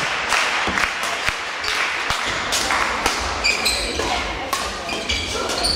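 Badminton doubles rally in a sports hall: sharp racket hits on the shuttlecock and, from about three seconds in, short high squeaks of court shoes on the hall floor, over crowd murmur.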